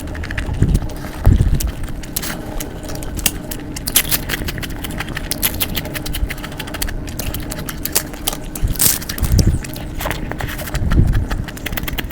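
Close-miked eating sounds: chewing and mouth clicks in an irregular stream, with a few low thumps.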